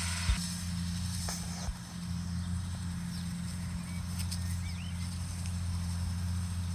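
Steady low drone of a Case MXU 130 tractor's engine working at a distance, with a sharp knock just after the start and a few faint bird chirps in the middle.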